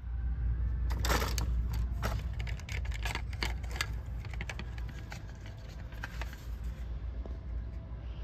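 Quick run of clicks and rattles of plastic crochet-hook packages knocking against metal pegboard hooks as they are flipped through and one is taken down, thickest in the first few seconds and thinning out after.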